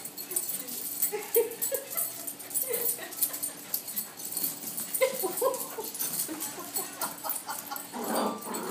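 Puppies playing rough together: many short yips and whines, with a patter of clicks from claws and tags on a hard floor and a louder scuffle near the end.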